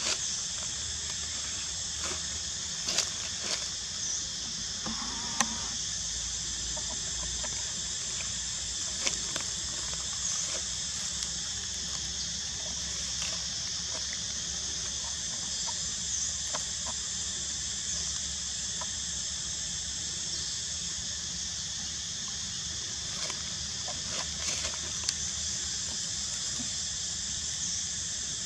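Steady high-pitched insect chorus, with a few short sharp clicks and crackles scattered through it.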